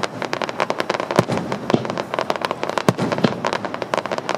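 Fireworks going off from a barge: a rapid, unbroken string of cracks and bangs, several a second, with a few louder booms among them.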